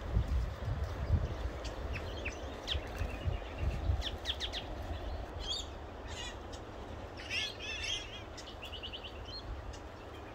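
Small birds twittering: short, sharp, falling chirps scattered throughout, a busier flurry of calls about seven seconds in, and a quick run of short even notes near the end. A low rumble on the microphone in the first few seconds carries the loudest peaks.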